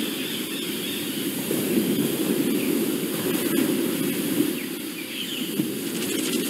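Paper pages of a hand-held flipbook riffling under the thumb, a steady fluttering rustle.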